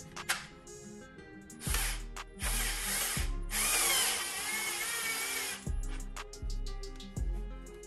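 Power drill running in two bursts, a short one about two seconds in and a longer one of about two seconds just after, its motor whine wavering in pitch during the second. Background music with a steady beat plays underneath.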